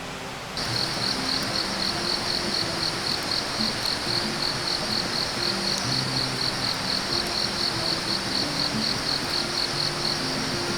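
Insect calling: a high, pulsing buzz at about four pulses a second that starts abruptly just after the beginning, over soft background music.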